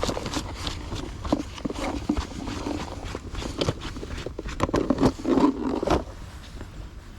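Irregular clicks, knocks and scraping of hand work at close range, busiest about four to six seconds in.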